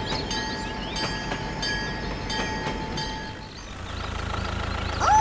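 Toy train sound effect: a steady horn-like tone with a regular clack about every three-quarters of a second. About three and a half seconds in it stops and gives way to a low, steadily pulsing engine hum.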